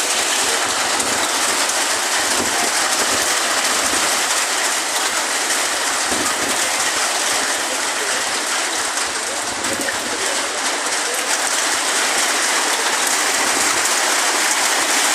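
Heavy rain pouring down in a storm, a loud steady rushing hiss.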